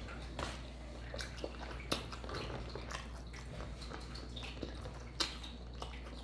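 A person chewing a fried chicken sandwich with the mouth close to the microphone: soft, irregular mouth clicks.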